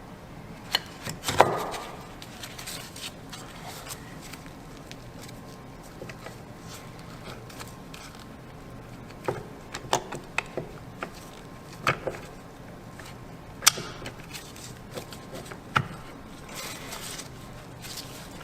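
Metal parts clinking and clicking at irregular intervals as limited-slip clutch pack plates, shim and side gear are fitted into a differential carrier. The loudest clink, about a second and a half in, rings briefly.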